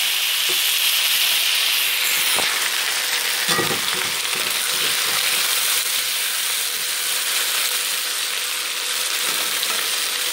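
Raw jackfruit pieces sizzling loudly in hot oil in an iron kadhai, just after going into the pan. The sizzle eases slightly while a flat spatula stirs them, knocking and scraping the pan a few times.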